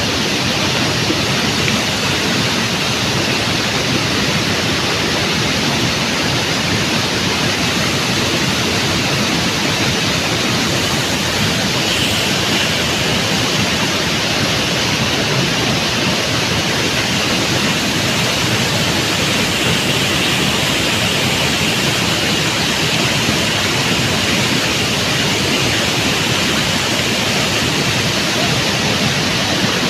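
Waterfall in full flow: a loud, steady rush of falling water.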